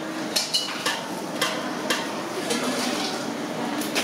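Kitchen clatter of metal utensils and pots: a string of sharp clinks and knocks, about two a second, over a steady background hiss.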